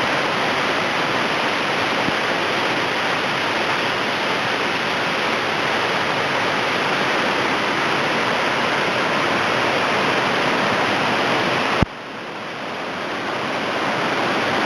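Waterfall rushing steadily. About twelve seconds in, the sound cuts off with a click and comes back quieter, building slowly.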